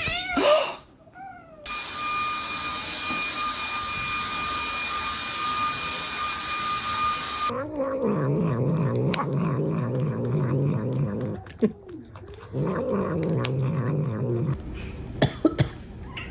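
Cat calls: a short meow at the start, then long, low, wavering yowls in the second half, broken once by a short pause. Between them, several seconds of a steady hiss with a high whine, and a few sharp clicks near the end.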